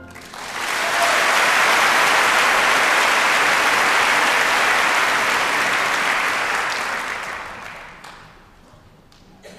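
Theatre audience applauding a ballet solo: the clapping swells within the first second, holds steady, then fades away by about eight seconds in.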